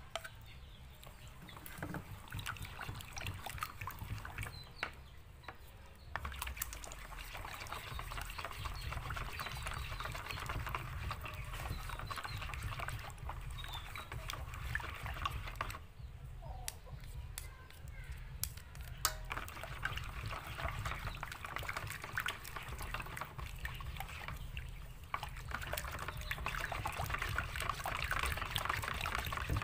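A spatula stirring thick, wet batter of mashed purple yam in a stainless steel pot: a steady sloshing and squelching with small clicks against the pot, pausing briefly a few times.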